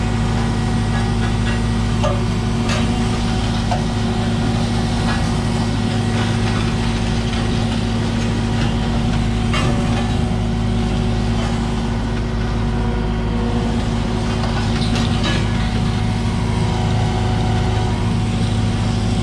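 Heavy diesel engine running at a steady speed, with a few brief knocks or clanks.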